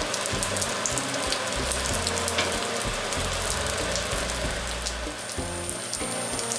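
Burger patties sizzling in their fat on a ridged griddle pan, with a steady dense crackle of spitting fat.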